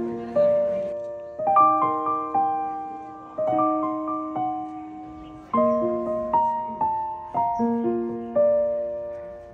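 Background music: a piano playing a melody of separate notes over chords, each note striking and fading away.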